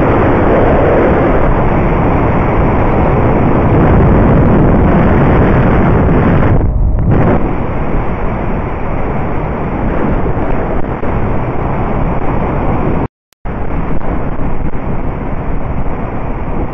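Heavy wind buffeting on a helmet-mounted camera's microphone at road speed, over the rumble of the ride. The sound is steady and loud throughout, thins briefly about seven seconds in, and drops out for a moment about thirteen seconds in.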